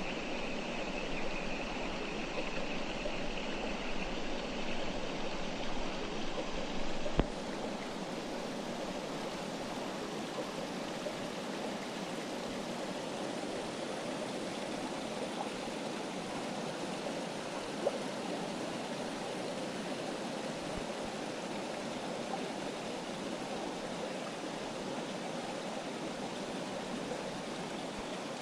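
Clear mountain river flowing over rocks: a steady rush of running water. About seven seconds in there is a click and the rush changes slightly in tone.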